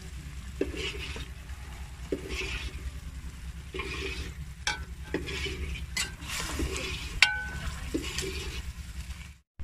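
A metal spatula stirs chunks of mutton liver frying in ghee in an aluminium karahi. It scrapes the pan in strokes about every second and a half, with a few sharp clinks against the metal, over a steady low rumble.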